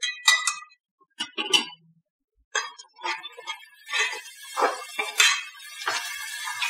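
Metal skimmer ladle clinking and scraping against a metal cooking pot, a few separate knocks at first, then steady stirring. From about four seconds in, a continuous sizzle joins the strokes as yogurt and spices are fried in hot ghee.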